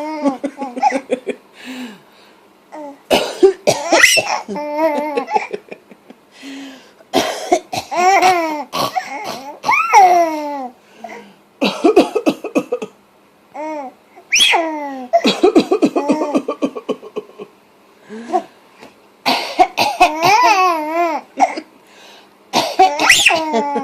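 An adult coughing in short bursts, about six times, each round answered by a baby's high-pitched laughter and squeals.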